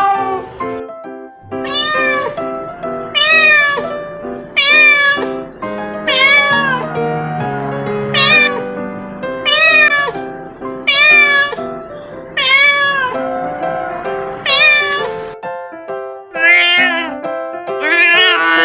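Domestic cat meowing over and over, roughly once a second, about a dozen meows, each one rising and falling, over background music.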